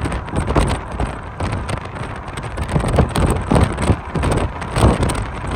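Wind buffeting the microphone in uneven gusts, a loud rushing noise that swells and dips.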